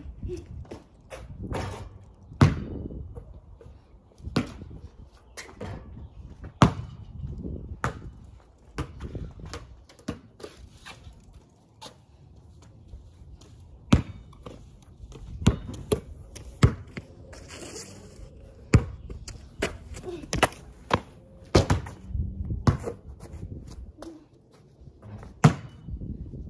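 Basketball bouncing on a concrete driveway and hitting a hoop: a string of irregular sharp thuds, one to two seconds apart.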